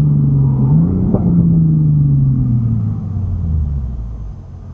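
Car's engine and road noise heard from inside the cabin as the car brakes from about 50 mph toward a stop: the engine note falls steadily in pitch, with a brief rise about a second in, and the sound fades over the last second or so.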